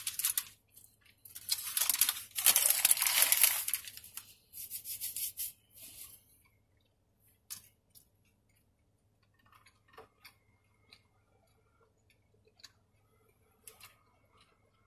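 Paper wrapper of a fast-food gyro crinkling and tearing as it is handled, in several loud rustling bursts over the first five seconds or so. After that there is only faint chewing with small mouth clicks.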